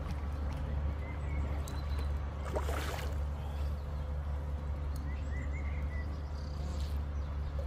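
A hooked African catfish swirling and splashing at the pond surface, with one louder splash about three seconds in, over a steady low rumble. Faint bird chirps now and then.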